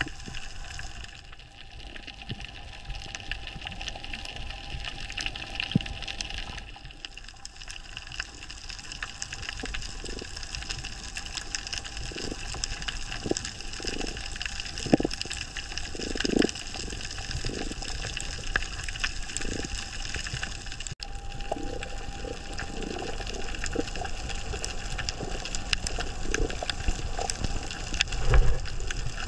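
Underwater ambience over a coral reef: a steady muffled water hiss speckled with many small clicks and crackles, with short low swishes of water through the middle and a low thump near the end.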